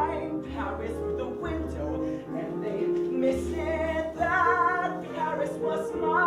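A man singing a musical-theatre song solo, holding notes with a wide vibrato, over instrumental accompaniment.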